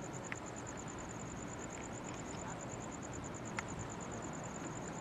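An insect chirping in a fast, steady, high-pitched pulse over a low outdoor background hiss, with a couple of faint clicks. No rocket rumble is heard yet.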